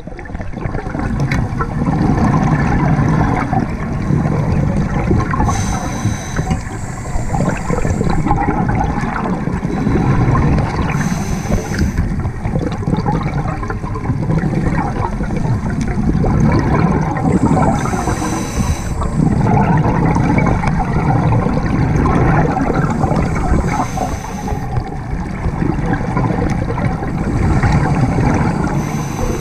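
Scuba diver breathing through a regulator, heard underwater through the camera housing. Each breath is a short hiss on the inhale and a longer bubbling rumble on the exhale, and the cycle repeats about every six seconds.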